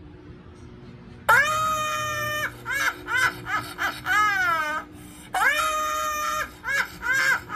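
A woman's shrill, high-pitched laughter, starting about a second in: a long held shriek followed by shorter rising-and-falling cries, then the same pattern again.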